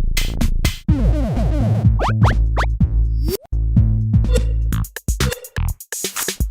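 Glitchy electronic music: drum-machine hits with quickly falling pitch sweeps over a low held bass, broken up by sharp clicks and sudden cut-outs.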